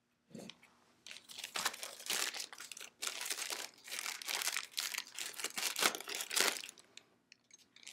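Clear plastic packaging bag crinkling and rustling as a rifle grip is pulled out of it: a fast, uneven run of crackles starting about a second in and stopping near the end.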